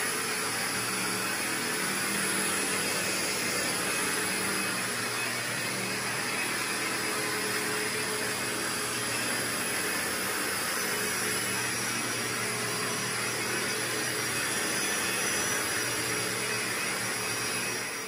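Carpet-cleaning vacuum running steadily, then stopping abruptly near the end.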